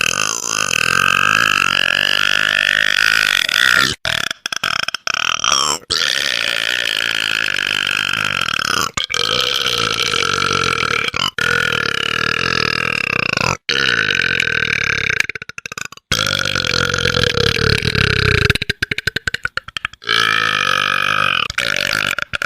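A man burping loudly, a string of long, drawn-out belches one after another, each lasting a few seconds. About three-quarters of the way through, one breaks up into a quick stutter of short pulses.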